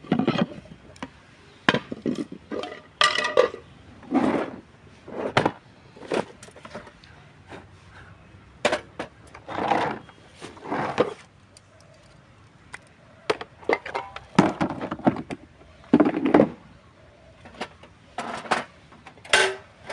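Irregular knocks, clicks and clatters of a portable gas camping stove being lifted out of its hard plastic carry case and set down on a stone table.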